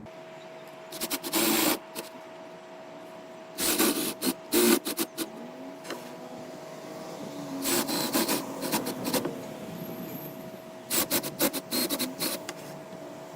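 Four short spells of rasping woodworking-tool noise, each a second or two long, over a steady low hum.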